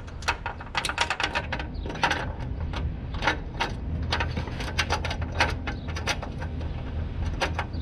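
Hand socket ratchet clicking in quick, irregular strokes as a strut-bracket bolt is tightened, with small metal knocks, over a steady low hum.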